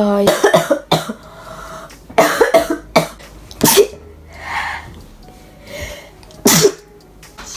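A girl coughing in about six separate harsh bursts, with breaths between them: the cough of a cold that also gives her a runny nose and a hoarse throat.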